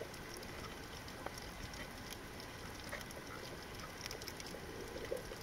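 Underwater reef ambience heard by a submerged camera: a steady hiss with many faint, scattered clicks and crackles.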